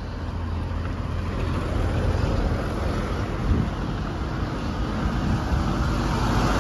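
Wind buffeting the phone microphone while riding a bicycle along a hill road, with road noise underneath. The rumble grows louder toward the end.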